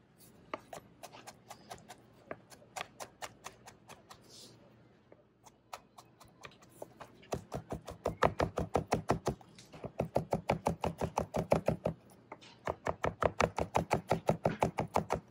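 A kitchen knife chopping on a cutting board as jalapeños are minced. It starts with scattered single cuts, then goes into three quick runs of rapid chopping at about eight strokes a second.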